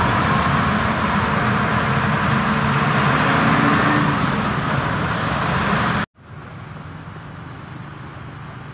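Diesel engine of a Tadano rough-terrain crane running loudly and steadily with a low hum; about six seconds in the sound drops abruptly to a much quieter, steady engine hum.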